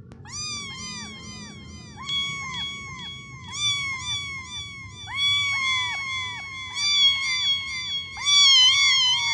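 Kitten mewing over and over: short, high calls, each rising and then dropping at the end, about three a second, growing louder toward the end.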